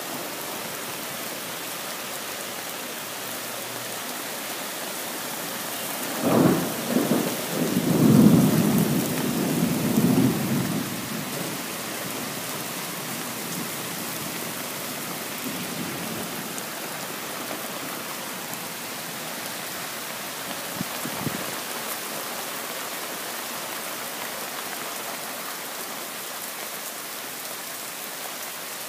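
Steady rain falling through a thunderstorm. A thunderclap cracks about six seconds in and rumbles on for about five seconds, and a fainter rumble comes near the twenty-first second.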